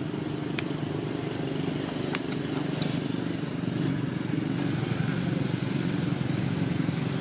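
An engine running steadily, with a few faint clicks over it.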